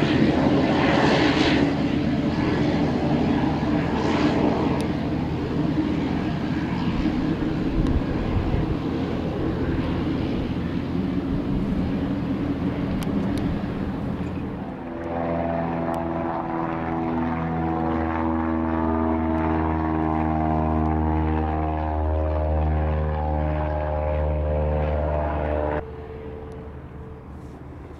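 Pilatus PC-12 NG's PT6A turboprop engine and propeller running on the ground. It is a loud, even rush for the first half. From about halfway it turns into a steady hum with several pitched tones that shift slightly. The sound drops sharply near the end.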